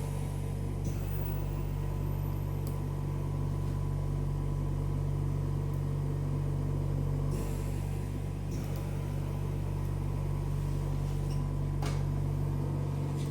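Steady machine hum holding one low pitch, with a few faint clicks over it.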